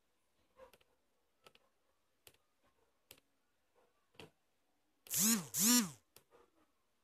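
Light sharp clicks about once a second, as the credit counter on the LCD goes up. About five seconds in come two loud pitched sounds, each rising and then falling in pitch.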